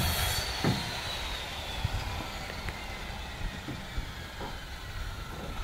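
Outdoor building-site background: a steady low rumble with a few light knocks of wood from carpenters working on a timber goat pen, and a faint high whine that slowly falls in pitch.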